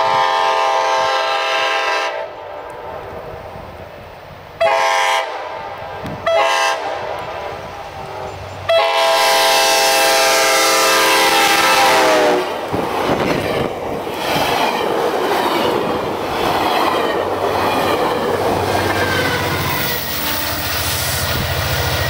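GO Transit commuter train's horn sounding four blasts, long, short, short, long, with the pitch dropping at the end of the last blast as the locomotive passes. The passenger cars then rush by with a steady rumble and wheel noise on the rails.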